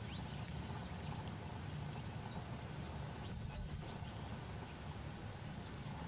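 Outdoor ambience: short, high bird chirps and whistled notes, a few of them gliding in pitch, scattered over a steady low rumble.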